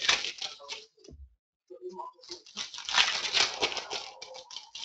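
Foil wrappers of Panini Classics baseball card packs crinkling and tearing as the packs are ripped open by hand, in two bursts: through the first second, and again from about two seconds in.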